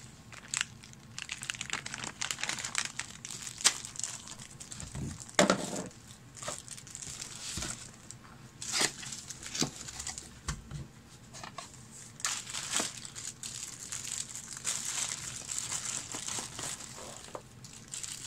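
Clear plastic bags crinkling and rustling as they are handled and unpacked, with a few knocks of cardboard boxes being moved in the shipping carton.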